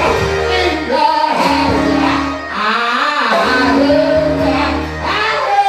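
Live church music: singing over instruments with a steady bass line.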